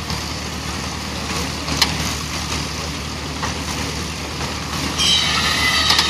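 International Harvester small square baler running under its belt drive while hay is fed in, a steady mechanical clatter and rumble. A single sharp clack comes about two seconds in, and a brighter, scratchy higher sound joins about five seconds in.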